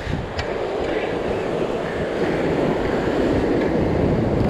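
Ocean surf surging and washing over the rocks, a steady rushing wash that slowly swells louder.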